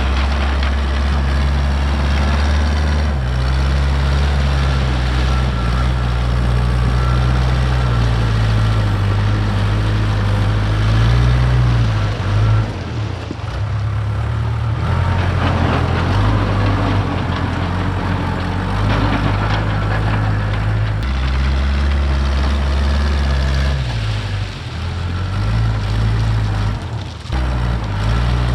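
Case 580K backhoe's diesel engine running under work, its speed rising and falling several times, with brief dips about halfway through and near the end.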